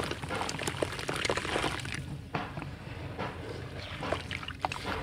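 Dry red dirt chunk crumbling between the hands, its grit and lumps splashing into water in a metal tub, then a hand sloshing through the muddy water. Many small crackles and splashes, densest in the first two seconds and sparser after.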